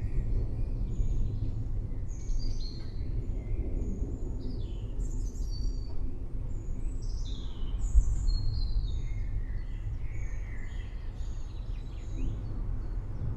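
Several small songbirds chirping and twittering in quick, overlapping calls, over a low continuous rumble of distant thunder that swells briefly about two-thirds of the way in.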